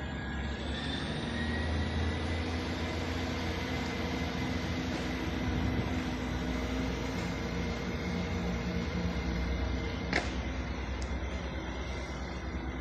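GWR Class 158 diesel multiple unit pulling away, its underfloor diesel engines running under power with a steady rumble and a thin high whine that slowly rises in pitch. A single sharp click comes about ten seconds in.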